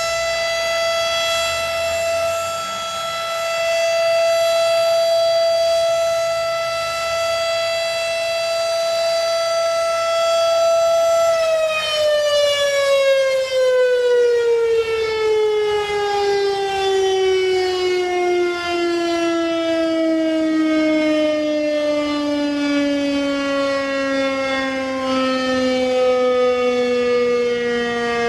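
Federal Signal Thunderbeam RSH-10A electromechanical tornado siren sounding a steady alert tone, very loud up close. About eleven seconds in it starts winding down, its pitch sliding steadily lower.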